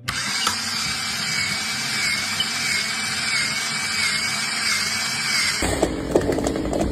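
A power tool running steadily with a thin, slightly wavering high whine over a noisy hiss, which cuts off abruptly about five and a half seconds in, giving way to a lower rumble with scattered clicks.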